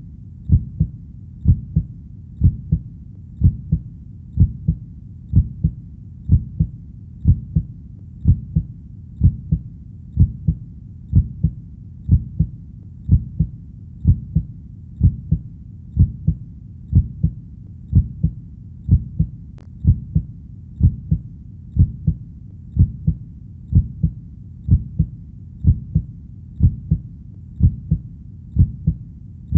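Heartbeat sound: a steady, slow lub-dub, each beat a low double thump, repeating evenly at about one beat a second.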